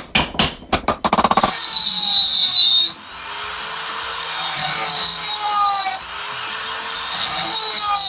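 A few sharp hammer blows in the first second, then a flex-shaft rotary tool (Dremel) drilling into a stainless steel screw in a spinning reel's crank knob. It gives a loud high whine that drops off about three and six seconds in and climbs back up each time.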